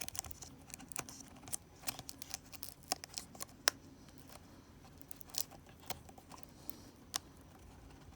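Scattered small clicks and taps of fingers handling laptop parts while the screen's display cable is pushed back into its connector, irregular, roughly one every half second to second, the sharpest right at the start.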